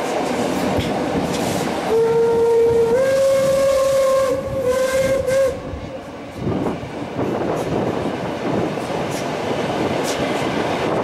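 A steam locomotive's whistle sounds about two seconds in: a long blast whose pitch steps up slightly partway through, then a short second blast. Throughout, the train's running noise and wind come in through the open carriage window.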